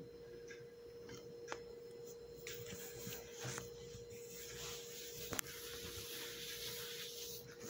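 A hand brushing and spreading flour across a countertop, soft swishes, over a steady faint hum. There are two light clicks, about a second and a half in and near the middle.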